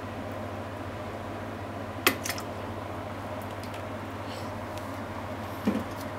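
Ground pork sizzling steadily in a frying pan over a low steady hum, with a sharp click of a utensil against the pan about two seconds in and a duller knock near the end.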